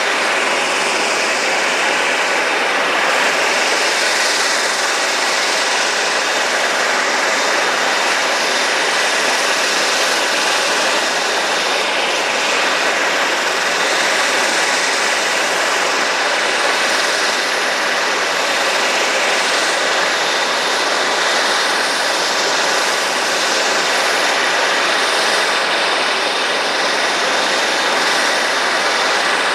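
Dash 8 Q400's Pratt & Whitney PW150A turboprop engines running at ground idle on the stand: a steady rushing roar with a thin, constant high whine on top.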